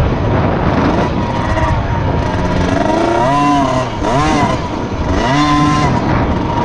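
Motocross bike's engine heard from on board, revving up and down again and again as the throttle is opened and closed, over a steady rush of noise.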